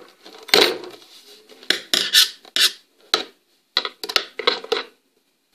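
Irregular sharp clicks and clatters of a tool working at tight screws in the plastic base of a drip coffee machine being taken apart. There is a quick run of clicks about four seconds in.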